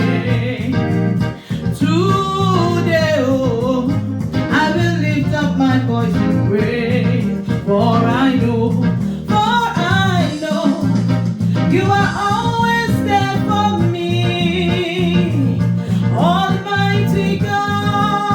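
Gospel worship music: a voice singing over a band with a steady bass line.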